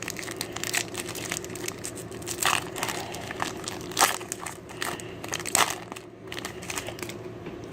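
Foil Pokémon booster-pack wrapper crinkling and crackling in the hands as the pack is opened, in irregular short crackles.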